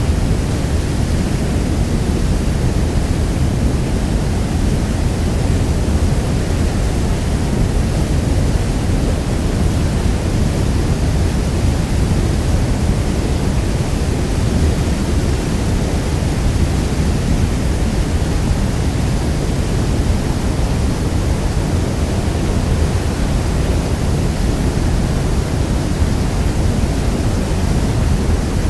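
Niagara Falls: a steady, unbroken rush of heavy falling water, deepest and strongest in the low end.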